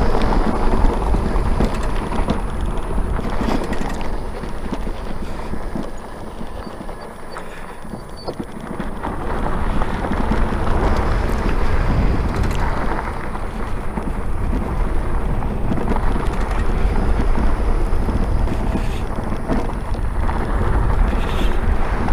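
Wind buffeting the microphone over the rolling noise of an Onyx RCR electric bike riding a dirt trail, with scattered knocks and rattles from bumps. It eases off for a few seconds about six seconds in, then picks up again.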